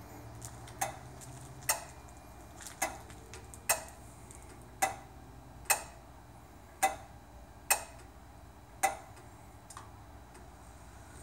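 A sharp mechanical click about once a second, about ten in all, the gaps alternating slightly shorter and slightly longer, from the 2006 Infiniti M45 in its self-diagnostic mode.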